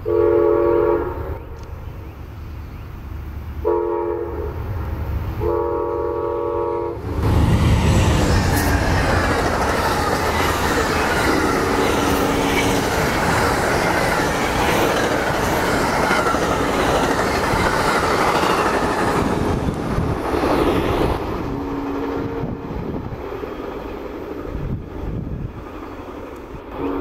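Amtrak passenger train sounding its locomotive horn in three blasts for a grade crossing, the last running into the train itself. The train then passes close by with a loud rush and rumble of wheels on the rails, easing off as the last cars go by.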